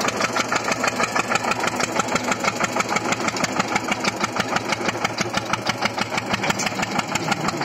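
Single-cylinder diesel engine of a 1997 Eicher 242 tractor running under load, pulling an 11-tine zero-till seed drill through stubble. It has a steady, even beat of about nine exhaust pulses a second.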